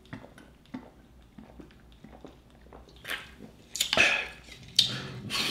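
Close-up mouth sounds of a man eating and drinking: quiet chewing clicks at first, then a few louder sips and swallows of a fizzy soda in the last two seconds or so.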